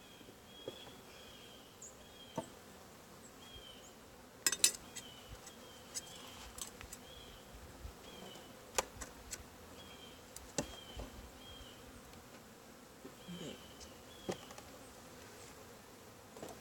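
Honey bees buzzing faintly and steadily around an open hive, with scattered sharp clicks and knocks from the wooden hive parts being worked, the loudest about four and a half seconds in.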